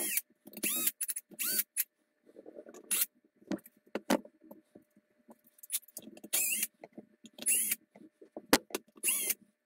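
Cordless drill/driver backing out small screws in short trigger pulses, its motor whining up and falling back in pitch with each pulse, about eight pulses in all. In a pause a few seconds in there are a few sharp clicks and rustles as screws and the plastic housing are handled.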